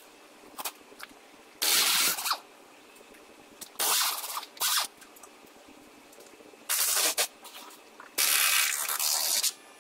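Pneumatic impact wrench run in five short bursts, the last and longest just over a second, loosening the subframe mounting bolts.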